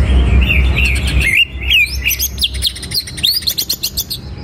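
Caged green leafbird (cucak ijo) singing: a few chirps over a low steady rumble at first, then from about a second and a half in a rapid-fire run of sharp, high notes and rising whistles.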